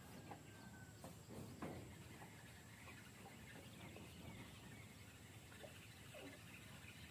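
Near silence: faint outdoor background with a few soft knocks and faint high chirping.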